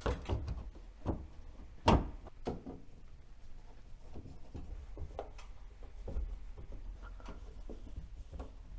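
Scattered clicks and knocks from hands handling an over-the-range microwave's newly refitted door, the sharpest knock about two seconds in.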